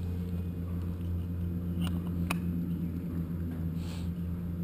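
Two small clicks and a brief hiss as a plastic fuel sampler cup is pushed up against the autogyro's fuel drain valve to draw a fuel sample, over a steady low hum.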